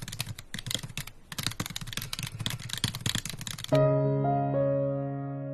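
Rapid keyboard typing clicks that stop about three and a half seconds in, replaced at once by music: a held chord that slowly fades.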